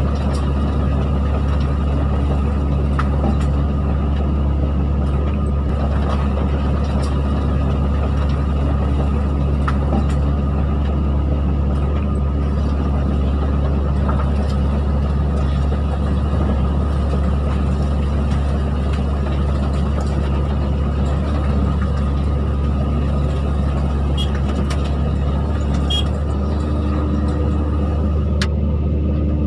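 Excavator's diesel engine running steadily, a deep even drone with a few faint clicks; a higher steady hum joins near the end.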